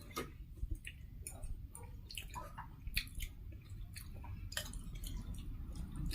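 Close-miked eating sounds: scattered wet mouth clicks and smacks while chewing food.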